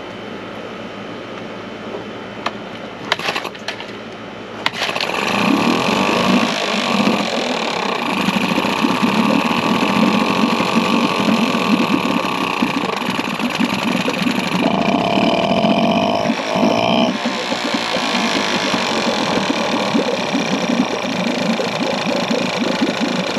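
2001 Yamaha 5 hp two-stroke outboard pull-started, catching about five seconds in and then running steadily in its test tank. Its note shifts briefly about fifteen seconds in.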